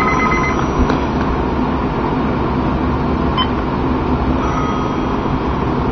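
Steady background hum and hiss, unchanging throughout, with no speech.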